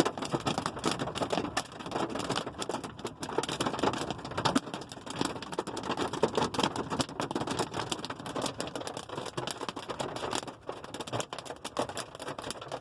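Hailstones striking a hard surface in a dense, irregular clatter of rapid hits.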